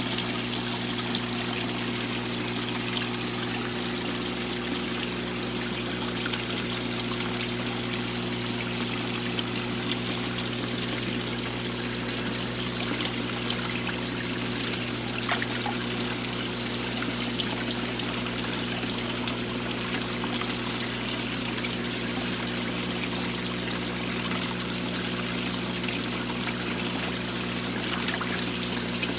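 Water running and bubbling steadily into a goldfish tub, with a steady low hum underneath.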